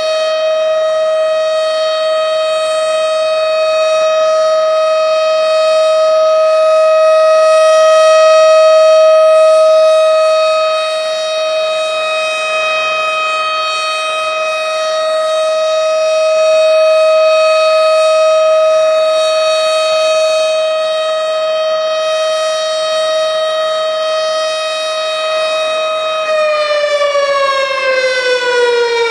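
Tornado warning siren sounding one long steady tone, its loudness slowly swelling and fading twice. Near the end the pitch starts to fall as the siren winds down.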